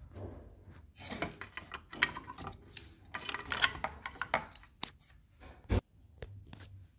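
Hands handling a metal-cased switch-mode power supply on the bench: irregular rubbing, scraping and small clicks, with one sharp knock a little before six seconds in.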